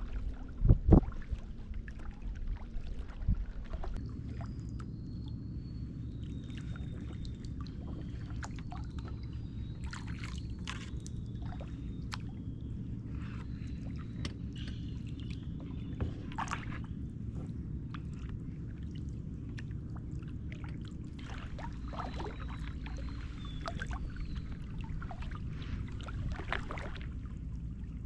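Kayak out on the water: irregular splashes and drips from paddling, over a steady low rumble, with a couple of knocks about a second in. Thin high bird whistles come and go.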